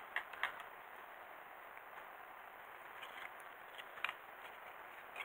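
Faint clicks and taps of small plastic robot-kit parts and a screwdriver being handled, over a low steady hiss: two soft clicks near the start, a few more around three seconds in, and a sharper one about four seconds in.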